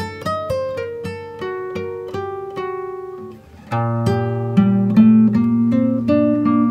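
Background music: an upbeat plucked-string tune in quick, even notes, which dips briefly a little over three seconds in and comes back louder and fuller.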